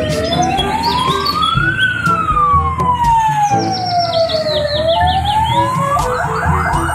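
Slow wailing ambulance-style siren, its pitch sliding down, up, down and up again over the whole stretch. Quick chirping sounds come in near the end.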